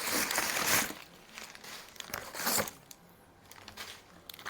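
Packing material in a cardboard shipping box being rummaged through by hand, crinkling. There is a longer burst in the first second and a shorter one about halfway through.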